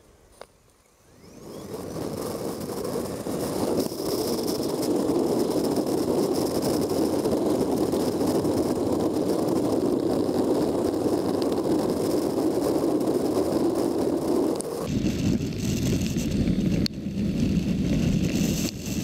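Wind and road noise at a motorcycle-mounted camera while riding a Zero SR electric motorcycle. It starts near-quiet with a single click about half a second in, rises over the next couple of seconds, and then holds steady as a dense rush. About fifteen seconds in it shifts to a deeper, rougher rush.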